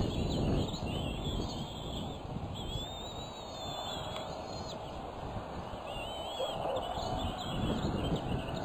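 Bald eagles giving thin, high-pitched, wavering calls in several runs, the longest about three seconds in, over a low rumble of wind on the microphone.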